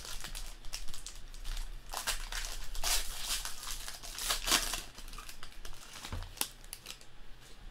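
Foil trading-card pack wrapper being torn open and crinkled by hand: a run of crackling rips and crinkles that dies down near the end.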